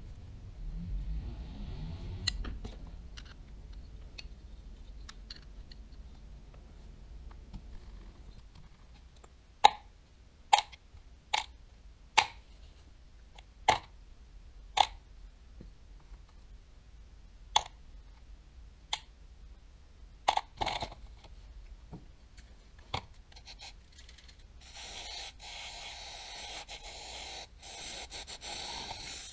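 Small parts of a Daiwa Tatula 100 TWS baitcasting reel being handled during disassembly: about a dozen sharp clicks and taps of hard parts knocking against each other and the work surface. A steady hiss starts near the end.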